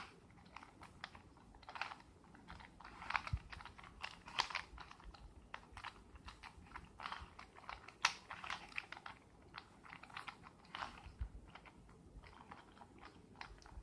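Plastic Rubik's Cube being twisted by hand, its layers clicking and clacking in quick, irregular runs of turns as an algorithm is worked through.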